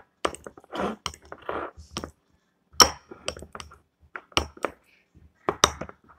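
Utensil mashing avocado in a bowl: irregular clinks of the utensil against the bowl with short scraping sounds between them.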